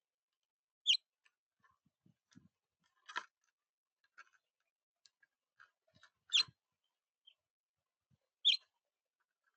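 A bird at a feeder giving three short, high chirps, about a second in, at six and a half seconds and near the end, with scattered faint clicks and rustles between them.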